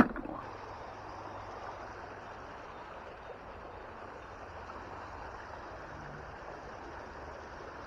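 A single sharp clank as a rusty bolt just pulled from the canal is dropped into a bucket of scrap-metal finds, followed by a steady rushing background noise.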